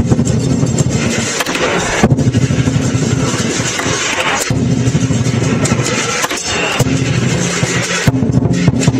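Lion dance music: a drum pounding with clashing cymbals and a gong, loud and continuous, swelling in surges every two seconds or so.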